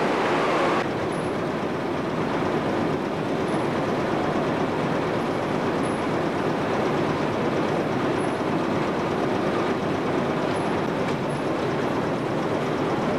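Tea-factory processing machines running, a steady mechanical noise that changes slightly about a second in.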